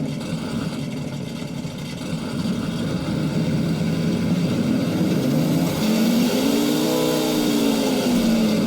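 Simulated engine sound from an RC crawler's sound-kit speaker, idling steadily, then revving up and back down about six seconds in.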